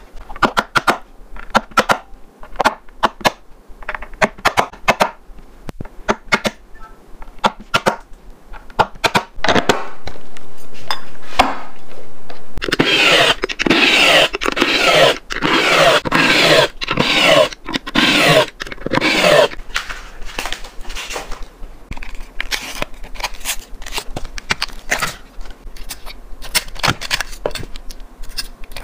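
Cordless drill running for several seconds about midway, its whine rising and falling as it drives the nuts on a skateboard's trucks. Sharp clicks and taps of tools and parts being handled come before and after it.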